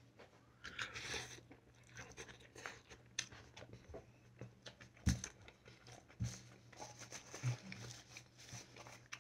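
Faint close-up chewing of a mouthful of rice mixed with roast pork and julienned potato strips: soft crunching and small mouth clicks, with a few louder crunches in the second half.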